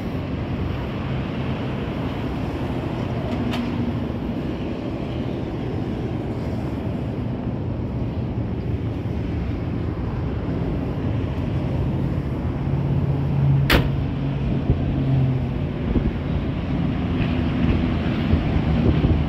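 1955 Chevrolet Nomad's engine idling steadily, with wind on the microphone. A single sharp click about two-thirds of the way through.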